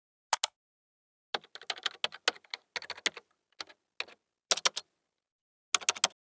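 Keys on a computer keyboard being typed: irregular clicks coming in short bursts with brief pauses between them.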